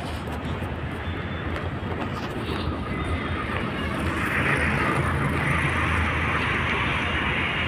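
Road traffic on a multi-lane road: cars passing in a steady noisy rumble of engines and tyres, growing louder about halfway through as traffic goes by closer.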